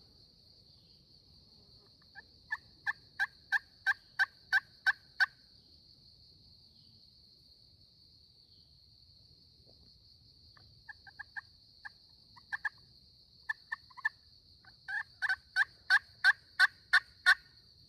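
Hen yelps on a turkey call: a run of about nine evenly spaced yelps, a few scattered softer notes, then a second, louder run of about eight yelps near the end. A steady high-pitched hum runs underneath.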